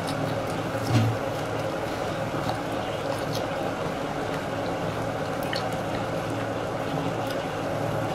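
Closed-mouth chewing of a bite of hard frozen ice cream bar: faint scattered crunching clicks over a steady hiss and hum, with one low thump about a second in.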